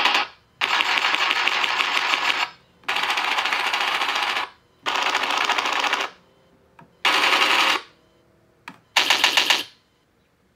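Recorded machine-gun fire played through an RC tank sound board's small speaker: a run of about six bursts of rapid fire, the early ones nearly two seconds long and the last two shorter, with short silent gaps between them.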